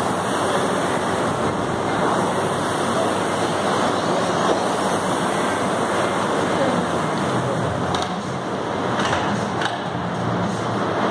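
Air rowing machine's flywheel fan whooshing under hard, fast strokes, with a few knocks near the end as the rowing stops.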